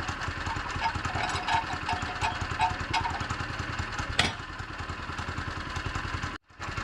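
Woodland Mills HM122 sawmill's gas engine idling steadily, with one sharp knock about four seconds in.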